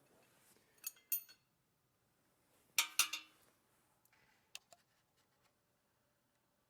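Metal parts clinking and knocking as they are handled and set down: a couple of light clinks about a second in, a louder cluster with a brief ring about three seconds in, then two small ticks.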